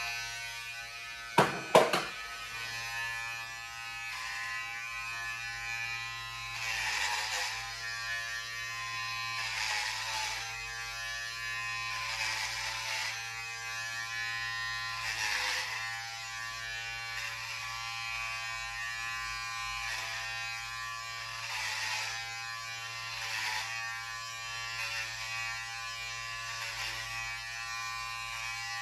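Electric hair clippers switching on and buzzing steadily, the buzz swelling every few seconds as they are run through hair. Two sharp knocks about a second and a half in.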